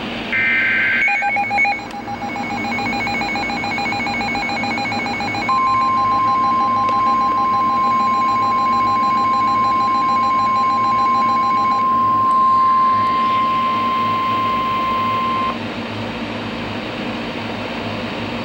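NOAA Weather Radio emergency alert opening. It starts with a brief screech of SAME digital header data. A rapid pulsing beep starts about a second in and stops near twelve seconds. From about five seconds in, the steady 1050 Hz warning alarm tone sounds for about ten seconds, cuts off, and leaves radio hiss.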